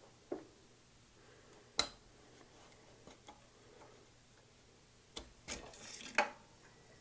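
Metal tool clicking and scraping inside a bicycle's bottom bracket shell as it is worked in behind the cup: a sharp click about two seconds in, then a cluster of clicks and scraping near the end.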